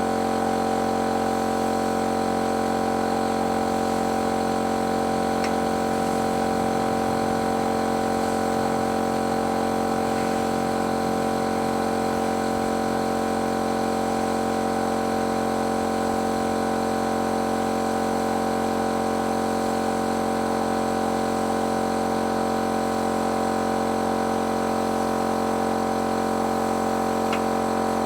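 Paint-spraying machine running steadily: an unbroken motor and pump hum with a constant pitch.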